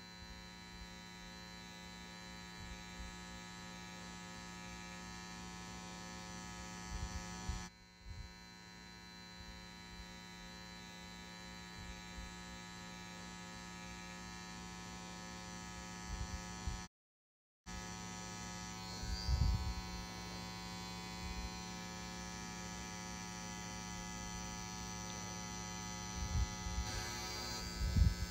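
Pen-style rotary tattoo machine running with a steady electric hum as it inks the skin, with a few soft low bumps from handling. The hum breaks off twice, once for a split second of complete silence about two-thirds of the way through.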